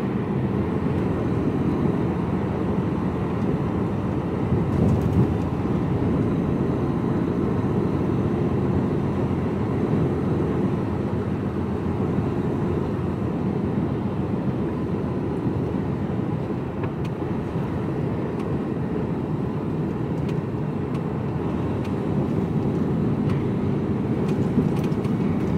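Steady running noise of an HGV container lorry heard from inside its cab while driving: diesel engine and road noise.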